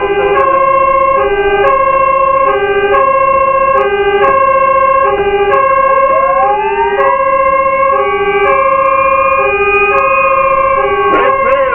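Fire engine's two-tone hi-lo siren alternating between a high and a low note, about one cycle every second and a quarter. About five seconds in, a second siren rises into a long, slowly falling wail, and a quick warble comes briefly near the end.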